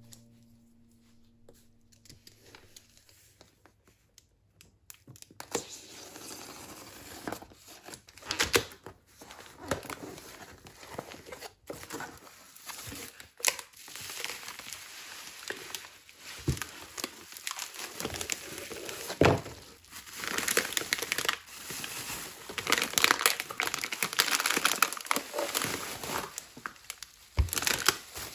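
Cardboard shipping box being opened and bubble wrap and plastic wrapping crinkled and pulled as a package is unpacked. Nearly quiet for the first five seconds, then rustling and crinkling with sharp crackles, busier and louder in the second half.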